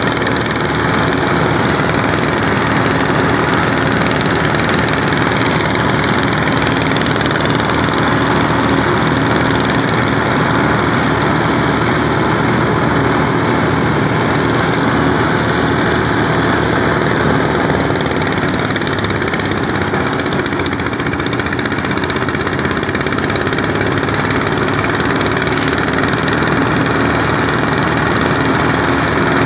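Portable engine-driven rice thresher running steadily at a constant loud level.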